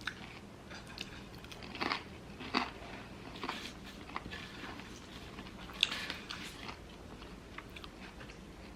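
A person chewing and biting food close to the microphone, mukbang eating sounds from a loaded cheeseburger and curly fries meal. Scattered short, sharp mouth sounds, the loudest about two, two and a half and six seconds in.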